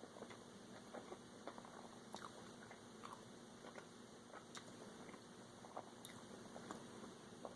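Faint chewing with scattered small crunchy clicks: a person biting into and eating a crispy McChicken sandwich.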